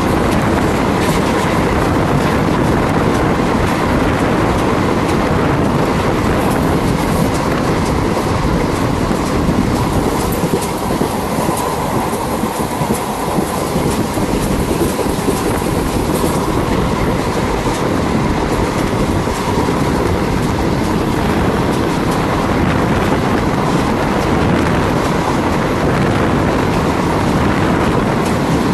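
Indian Railways passenger train running at speed, heard from the moving coach: a steady, loud rush and rumble of wheels on the track, with faint clicks now and then.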